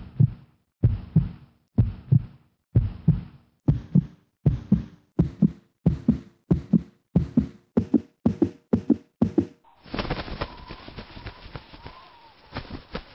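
Heartbeat sound effect, a double thump on each beat with a low tone under it, quickening from about one beat a second to about two. About ten seconds in the heartbeat stops and a steady rush of wind noise takes over, with crackles and a faint wavering whistle.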